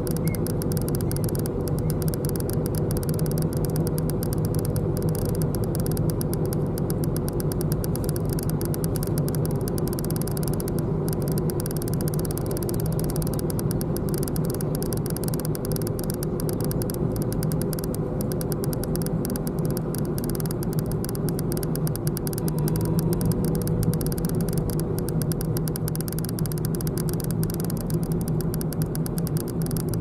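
A car driving at a steady pace, heard from inside the cabin: a continuous low hum of engine and road noise that does not change.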